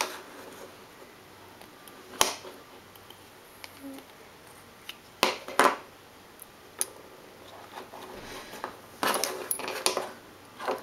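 Sharp clicks and clatters of a plastic key fob case being pried apart with a flathead screwdriver and handled: single clicks a couple of seconds in and again around the middle, then a quick run of clicks near the end.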